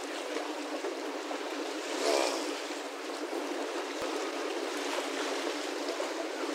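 Steady wash of lake water lapping against shoreline rocks, with a brief louder noise about two seconds in.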